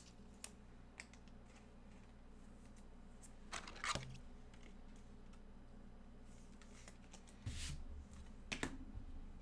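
Trading cards and their packaging being handled: faint rustling with a few short, sharp clicks, the loudest about four seconds in and again near the end.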